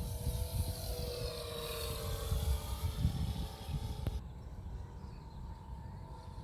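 Radio-controlled model aircraft flying by, its engine drone sliding slowly down in pitch as it passes, with wind rumbling on the microphone. About four seconds in, a click and a sudden drop in hiss.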